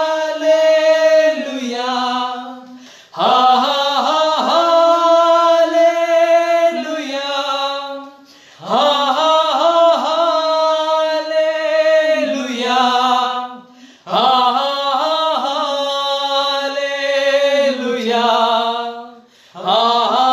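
Men's voices singing a Hindi Christian worship song a cappella, with no instruments. The song moves in long, held phrases of about five seconds each, with short breaths between them.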